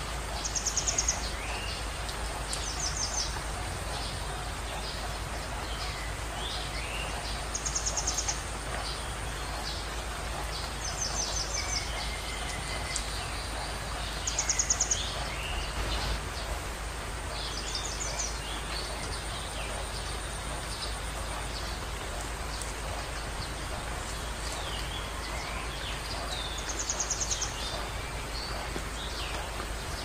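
Birds calling over a steady outdoor hiss: a short, rapidly pulsed high call recurs every few seconds, with scattered short falling chirps between.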